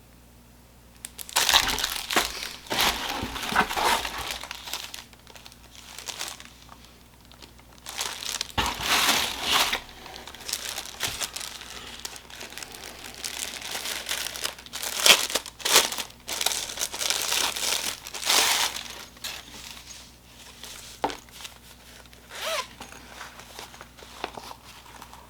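Packaging being handled while items are unwrapped: crinkling and tearing in irregular bursts, starting about a second in.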